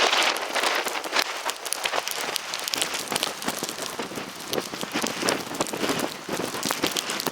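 Blizzard wind with blowing snow: a steady hiss broken by many quick crackles, strongest in the first second and easing a little after.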